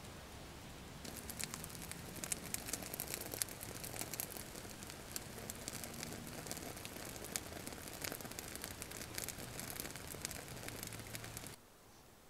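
Fire crackling with dense, irregular popping. It starts about a second in and cuts off suddenly near the end.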